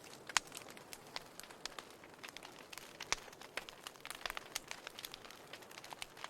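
Wood fire crackling in a fireplace: irregular sharp pops and snaps over a soft hiss, with a louder pop about half a second in and another about three seconds in.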